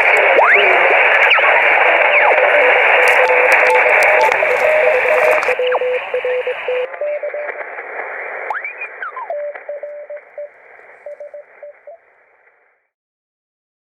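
Shortwave amateur-band receiver audio: a band of hiss with weak Morse code tones keying in short dashes and whistles sliding up and down as signals drift or are tuned across. The noise narrows in two steps about six and seven seconds in, then fades out just before the end.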